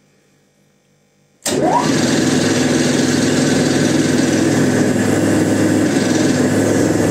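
Hydraulic test bench starting up and driving a rebuilt Bosch Rexroth two-section gear pump, its first section under test against pressure. The drive cuts in suddenly about a second and a half in with a short rising whine, then runs loud and steady.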